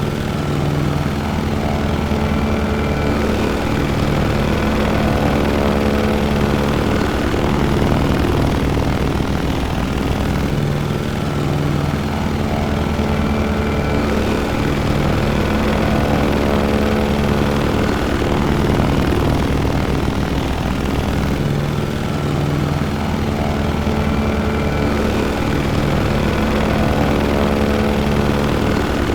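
Propeller airplane's piston engine running steadily, a constant drone with a rapid pulsing beat from the propeller and slow recurring shifts in tone.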